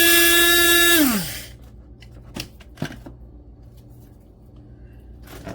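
A small electric motor running at a steady high whine, then switched off about a second in and spinning down with falling pitch, followed by a few light clicks and knocks.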